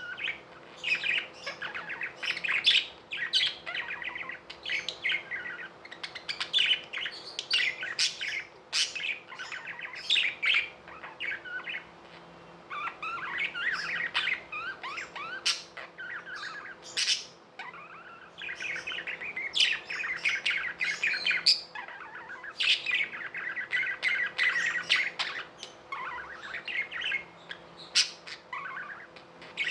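Budgerigars chattering and warbling non-stop, broken by sharp, high chirps and the odd squawk.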